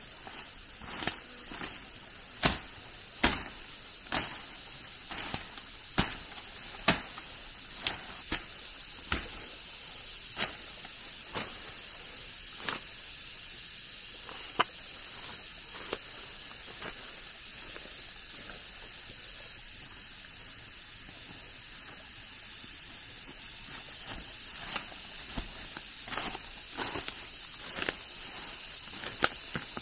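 Repeated sharp knocks or taps, about one a second for the first dozen seconds and then sparser, over a steady high-pitched hum.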